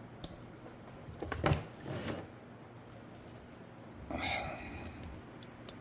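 Scattered handling noises: a sharp click near the start, a cluster of small knocks and rattles a second or so in, and a short breathy burst about four seconds in.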